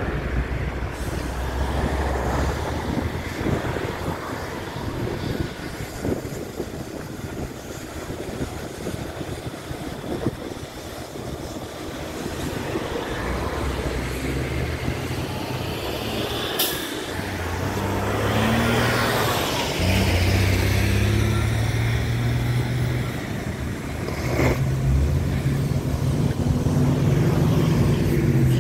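Truck and vehicle engines running nearby: a low, uneven engine drone that changes pitch and grows louder past the middle, with two sharp clicks.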